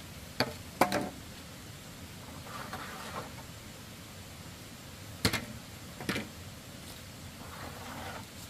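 Sharp knocks in two pairs, about five seconds apart, with soft scraping between. Near the end a bamboo pole slides and scrapes across dry dirt as it is pulled from a pile.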